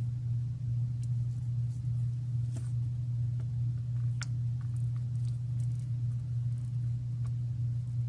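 A steady low hum, with a few faint light ticks from small parts and tools being handled while wires are pre-tinned with a soldering iron.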